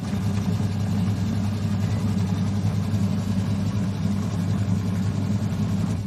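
Midea twin-tub washing machine's wash motor running, turning the newly fitted gearbox through the belt with the pulsator off, on a test run after the worn gearbox was replaced. A steady low hum that starts abruptly and stops at the end.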